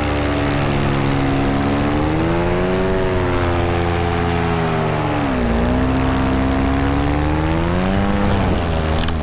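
Polini Thor 202 single-cylinder two-stroke paramotor engine running in flight, its pitch rising and falling with throttle changes, with a sharp dip about halfway through. Near the end a sharp crack, after which the engine note falls away: the throttle striking the propeller.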